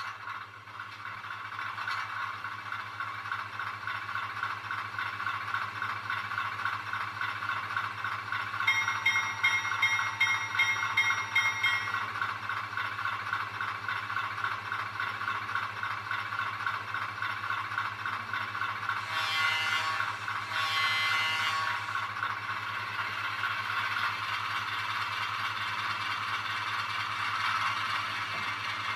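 Diesel switcher sound from an ESU LokSound micro decoder, played through a tiny 13 mm speaker in a Bachmann 45-tonner model locomotive. The engine sound comes up and settles into a fast, steady chug. A bell rings for about three seconds near the middle, and the horn sounds twice about two-thirds of the way in.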